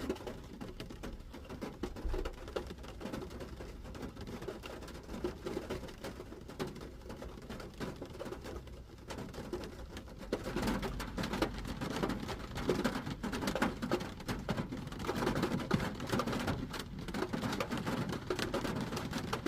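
Rain pattering on a car's roof and windshield, heard from inside the car: a dense tapping of drops that grows heavier about ten seconds in.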